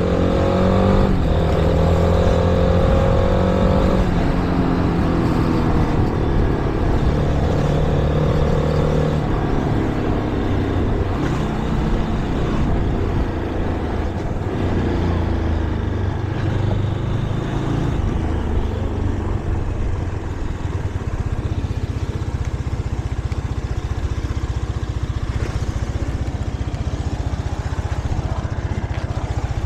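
Shineray Flash 250F motorcycle engine running under way, its pitch stepping up and down several times in the first part, then settling into a steady low note for roughly the last third, as at idle.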